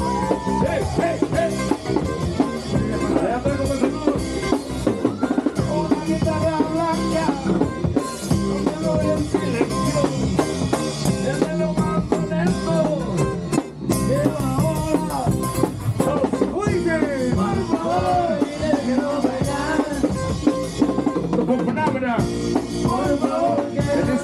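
Live band playing an instrumental passage: an accordion melody over a drum kit with rimshots, bass drum and guitar, at a steady beat.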